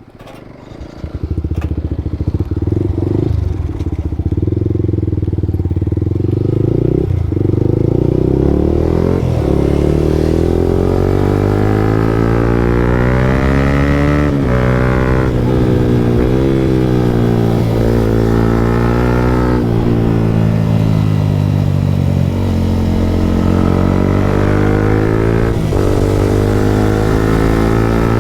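Motorcycle with an aftermarket Akrapovic exhaust being ridden: the engine note comes up loud about a second in, then repeatedly climbs in pitch and drops back as the rider accelerates and shifts through the gears.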